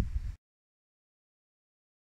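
A brief low rumble of wind on the microphone that cuts off abruptly a third of a second in, then complete silence.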